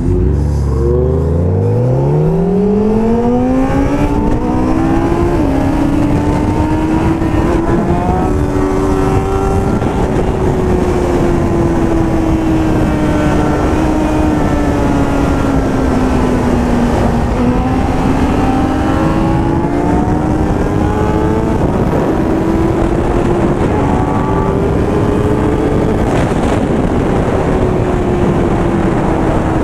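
Motorcycle engine accelerating hard, its pitch climbing steeply over the first few seconds, then held at high revs for the rest, rising and falling slowly, with heavy wind noise on the helmet microphone.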